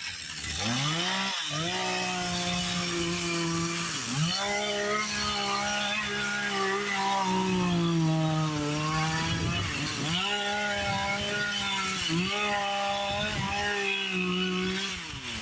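Two-stroke chainsaw revving up to full throttle and cutting into wood, its pitch sagging and recovering several times as the bar bites under load, then dropping off as the throttle is released near the end.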